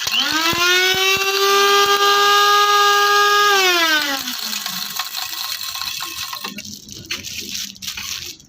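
Silvercrest electric grinder switched on: the motor spins up at once to a steady high whine, with a few hard clicks from pieces knocking in the jar, then is switched off about three and a half seconds in and winds down with falling pitch. Softer rattling and handling noise follows.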